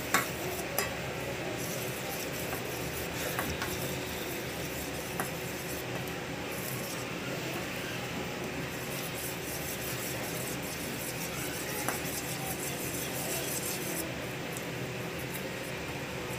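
A metal spoon stirring custard-powder batter in a steel bowl, with a few sharp clinks of spoon against bowl, the loudest just after the start. A steady background hiss runs under it.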